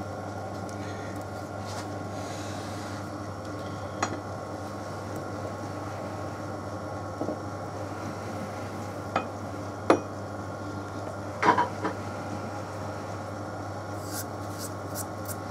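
Light metallic clinks and taps of steel tooling and a cast iron cylinder block being handled at a lathe, a few isolated knocks with a small cluster about two-thirds through and faint ticks near the end, over a steady low hum.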